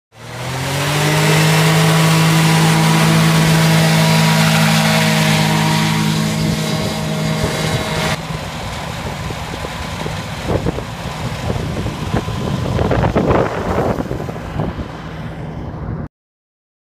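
Hovercraft engine and lift/thrust fan running at a steady, high-pitched note after spinning up in the first second. After a cut about eight seconds in it is heard further off and noisier, with irregular rushes of air noise, until the sound stops abruptly near the end.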